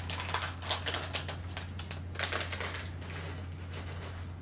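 A small snack packet of candied pistachios being torn open by hand: a quick run of crinkling crackles in the first couple of seconds, then fainter rustling.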